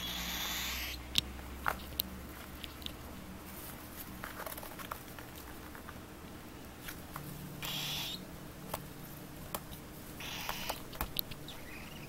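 Cockatiel chicks shuffling on a perch in their cage: three short hissy rushes, at the start, about eight seconds in and about ten seconds in, amid scattered small clicks and taps.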